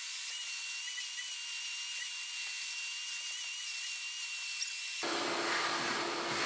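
Shop vacuum running with a steady high-pitched whine as its hose sucks up broken auto glass from a cargo-area carpet. About five seconds in the sound turns fuller, with a lower motor tone.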